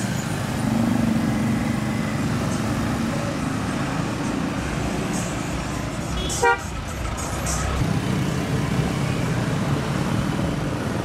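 Street traffic of minivan taxis and motorbikes passing, with a steady low engine rumble. A single short horn toot sounds about six and a half seconds in.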